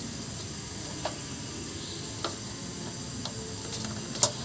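A few sharp light clicks and taps of wires and a hand tool knocking against a sheet-metal switch box, four in all, the last near the end the loudest, over a steady low hiss.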